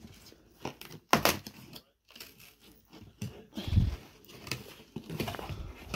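A cardboard advent calendar door being pried and torn open by hand: cardboard tearing and rustling with a few sharp clicks, and one duller thump about four seconds in.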